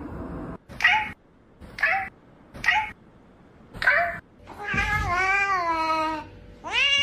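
Domestic cat meowing: four short meows about a second apart, then one long drawn-out meow, with another meow starting near the end.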